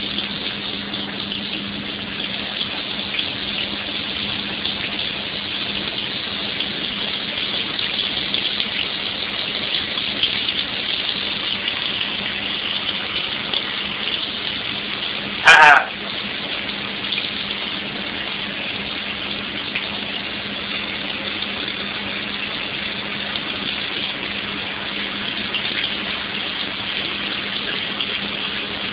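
A tap running in a steady stream of water, with a steady low hum underneath. About halfway through comes one short, loud, wavering sound.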